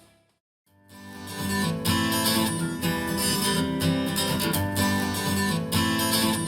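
Music: after a short silence, a song's instrumental intro starts, with strummed acoustic guitar over a steady beat.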